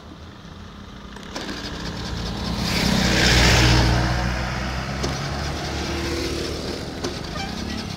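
A bus drives past close by. Its engine and tyre noise rise over the first few seconds, peak about halfway, then fade as it moves off up the road, with motorcycles passing as well.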